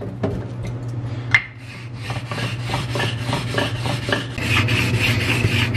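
A truing stone scrubbed back and forth over a wet clay whetstone to flatten its face, a gritty rasping at about three strokes a second that begins about two seconds in.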